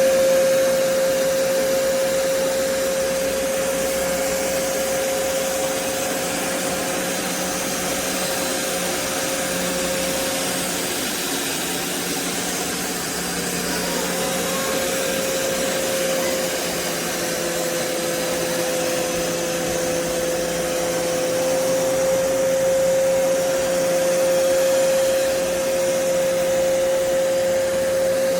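Floor-cleaning vacuum motor running steadily on carpet, with a constant whine over a rush of air.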